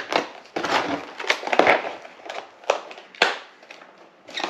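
Cardboard-and-plastic packaging of a gasket rope kit being slit with a utility knife and pulled open: irregular crackling, crinkling and tearing with a few sharp clicks.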